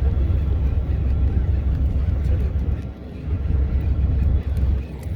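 Wind buffeting the microphone on a fishing boat at sea: a loud, uneven low rumble that eases briefly twice.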